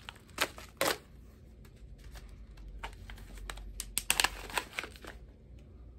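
Foil tea pouch being handled and pulled open by hand: sharp crinkly clicks, two near the start and a quick cluster about four seconds in.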